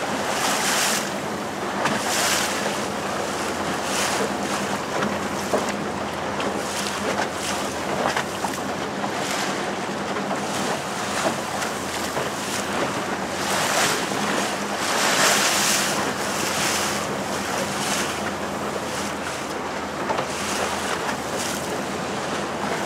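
Small motorboat under way on choppy sea: a steady low engine hum under the rush of water along the hull, with surges of splashing every second or two and wind buffeting the microphone.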